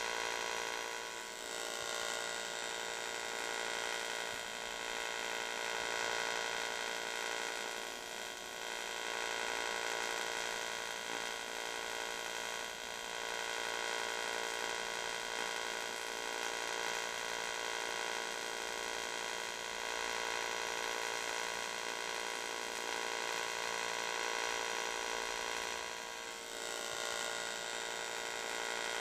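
AC TIG welding arc on aluminium, a steady high-pitched electrical buzz with many overtones that wavers briefly a few times.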